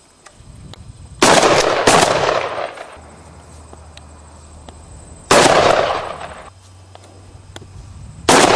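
Four shotgun shots: two about half a second apart a little over a second in, one around the middle and one near the end, each sharp and fading over about a second.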